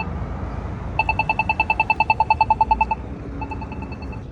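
Polara iNS accessible pedestrian signal giving its rapid walk tick, about ten sharp ticks a second for about two seconds, then a fainter run of the same ticks; the rapid ticking means the walk sign is on. Traffic rumbles underneath.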